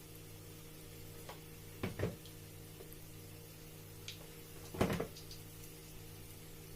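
Kitchen utensils knocking against a frying pot while puff puff batter is dropped into hot oil: two quick knocks about two seconds in and a louder cluster about five seconds in, over a steady low hum.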